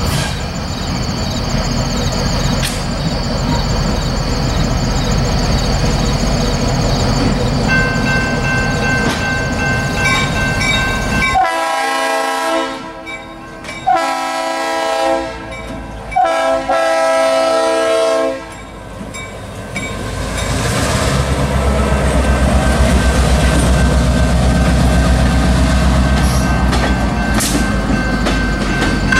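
A diesel freight locomotive approaching with a steady rumble. About halfway through, its multi-chime air horn sounds several blasts over some seven seconds. The engine and wheel noise then grows louder and deeper as it comes close.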